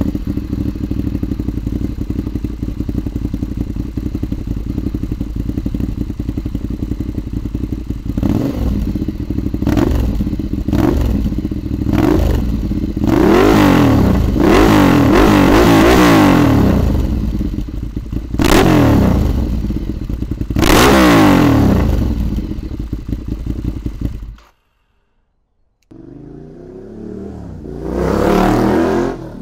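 A Ducati Diavel's L-twin engine through a Competition Werkes aftermarket exhaust, idling steadily and then revved in short throttle blips and several longer, higher revs. It shuts off abruptly about 24 seconds in. After a brief silence the engine is heard again, quieter, rising to a peak near the end.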